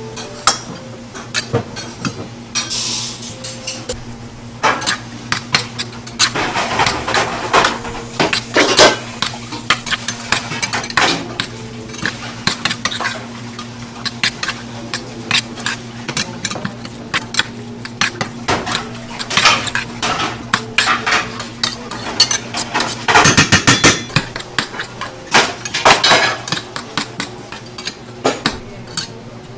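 Dishes, bowls and metal utensils clattering and clinking in a busy restaurant kitchen, with a dense run of rapid clatter about two-thirds of the way in. A steady low hum runs underneath.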